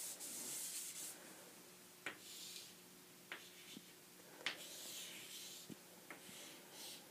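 Chalk on a chalkboard writing numerals: faint scratchy strokes broken by a few sharp taps.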